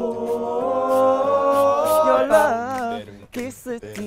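All-male a cappella group singing: a chord of several voices held for about two seconds, then wavering runs and short broken phrases, over a beat of sharp percussive hits.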